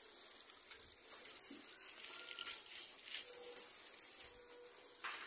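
Water spraying from a hand-held garden hose onto a corrugated zinc sheet, a high hiss that swells about a second in and drops away near the end.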